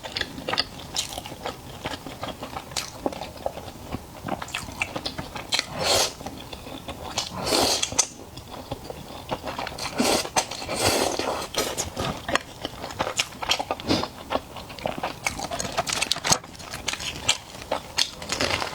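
Close-miked eating: a person biting and chewing food, with crunchy bites and many small irregular clicks, plus a few longer noisy swells.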